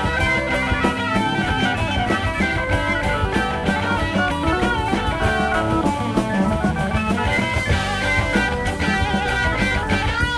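Instrumental passage of 1970s progressive rock: guitar over a drum kit keeping a steady beat.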